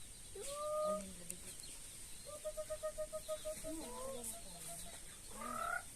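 Chickens clucking and calling: a short rising squawk, then a rapid run of clucks, then another rising call near the end.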